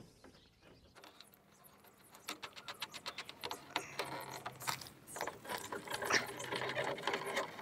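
Hand screwdriver tightening the screws that hold a VW T4's plastic radiator grille, with a fast run of clicks that starts about two seconds in and grows louder.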